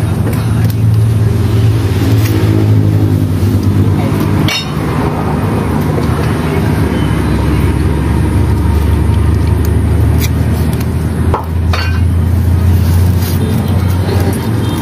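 Steady low engine rumble from a nearby motor vehicle, with a few sharp knocks of a knife blade on a wooden chopping board as an eel is slit open.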